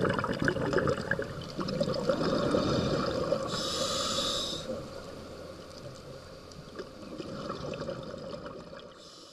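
Underwater sound picked up through a camera's waterproof housing: a scuba diver's regulator breathing, with exhaled bubbles gurgling and crackling. A short hiss comes about four seconds in, after which the sound is quieter and fades out near the end.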